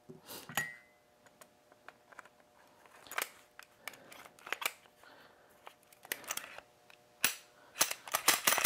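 Smith & Wesson M&P pistol being reassembled: scattered metal clicks and clacks as the slide goes onto the frame and is handled, with a quick run of louder, sharper snaps near the end.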